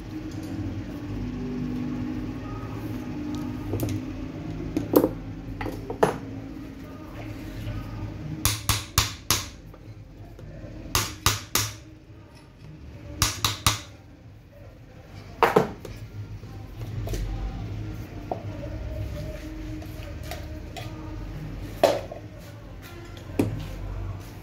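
Sharp metallic clinks and knocks from a tractor alternator's housing and hand tools being handled on a workbench, coming as scattered single strikes and short quick runs of three or four.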